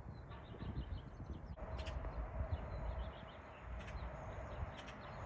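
Birds chirping over a low rumble, with a faint steady hum that starts about a second and a half in.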